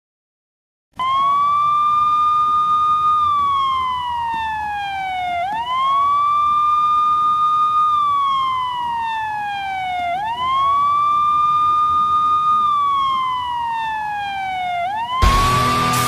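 Police siren wailing three times after a moment of silence, each cycle a quick rise to a held high pitch and then a slow slide down. Near the end, as the siren starts a fourth rise, loud music kicks in.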